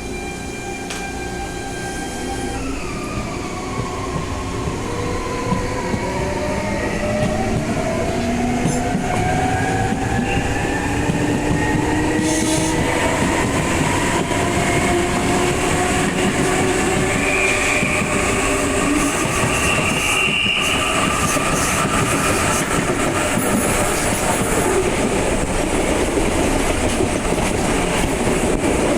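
Electric multiple unit's VVVF traction inverters whining as the train pulls away and accelerates: several tones climb in pitch in stages over about twenty seconds, under a running noise from the wheels that grows steadily louder.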